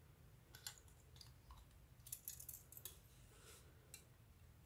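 Nail clipper snipping a part off a plastic model-kit sprue: faint, scattered small clicks, bunched together about two to three seconds in.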